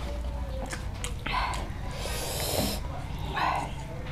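Close-miked mukbang eating sounds: wet mouth noises from chewing mutton and dhido eaten by hand. A noisy breath about two seconds in lasts under a second.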